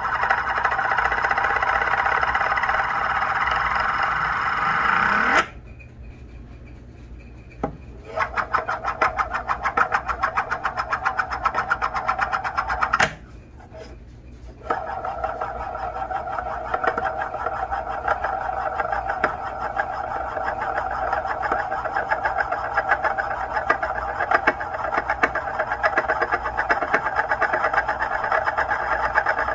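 Metal Euler's disc spinning and rolling on a wooden countertop with a steady whirring rattle. The whirr rises in pitch and stops abruptly about five seconds in. The disc is then set going again with a fast clatter, stops briefly, and is spun once more, whirring steadily.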